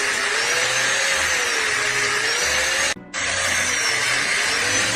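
Loud, steady machine noise with a whine that slowly wavers up and down; it drops out for a moment about three seconds in.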